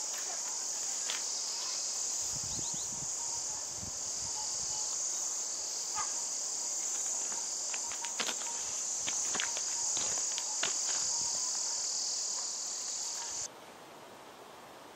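Insects chirring in a dense, steady, high-pitched chorus that stops abruptly near the end, with a few faint clicks and soft low bumps beneath it.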